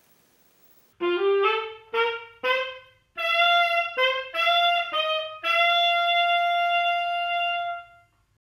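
Short closing music played on a single wind instrument: after a second of quiet, a run of quick separate notes, then one long held note that cuts off near the end.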